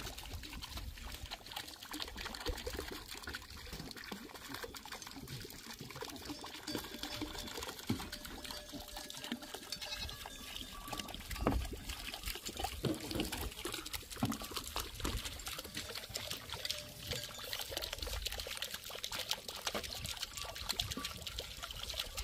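Water pouring and trickling steadily, with scattered light clicks and knocks.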